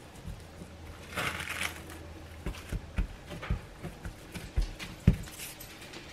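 Plastic wrap crinkling under hands that press a disc of butter pie-crust dough flat on a countertop, then several soft thumps as the palms pat the dough down.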